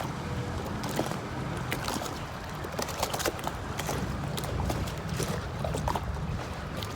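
Water lapping and splashing in small irregular slaps, over a steady low rumble.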